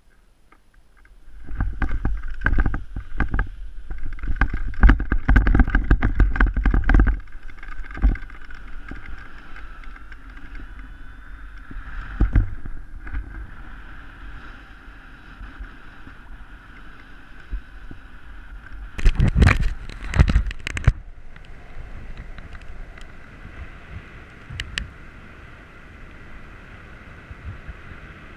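Wind buffeting a paraglider pilot's camera microphone through the launch and into flight. Heavy gusts hit for several seconds near the start and again about 19 seconds in, with a steadier rushing between them.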